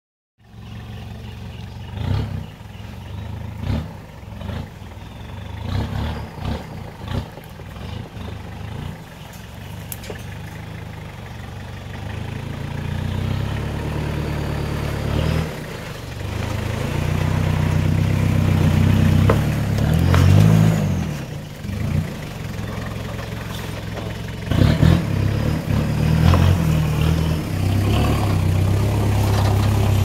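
Toyota Sport Rider 4x4's engine working and revving as the truck climbs a rutted dirt trail, getting louder as it comes close, with scattered knocks and clunks along the way.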